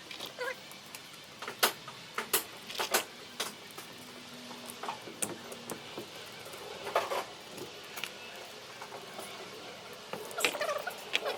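Scattered clicks and knocks of metal parts and hand tools being handled while a starter motor is worked on, at irregular intervals, with a busier run of clicks near the end.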